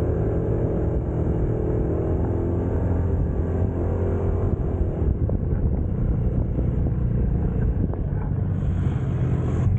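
Aveta Vanguard 250 motorcycle running on the move, with road and wind noise. A steady engine note in the first half gives way to a rougher rumble about halfway.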